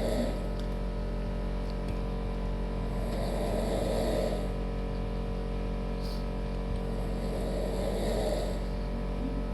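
A person snoring, slow rasping snores about four seconds apart, over a steady low hum.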